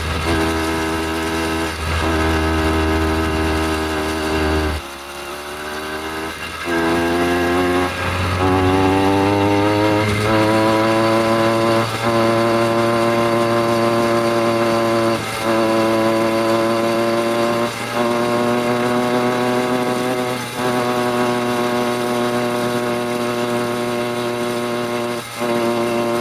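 An 80cc two-stroke bicycle engine running at high, steady revs. About five seconds in it eases off, then climbs back up in pitch and holds, with short dips every few seconds.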